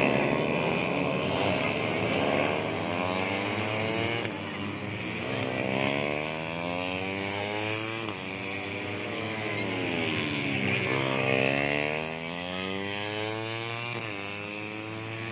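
Several 150cc four-stroke underbone racing motorcycles running hard, their engine notes overlapping. The pitch falls and climbs again over and over, with sharp breaks about every three to four seconds, as the bikes rev through the gears.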